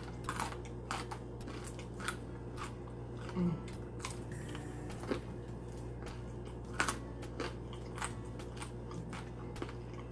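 Close-up biting and chewing of crunchy fried chicken wings: irregular crisp crunches every fraction of a second, over a faint steady hum.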